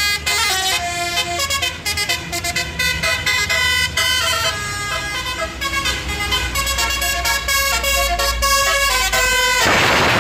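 A bus's 'telolet basuri' musical horn playing a quick tune of many changing notes over the low rumble of the engine. Near the end the tune stops and a loud rush of noise takes over.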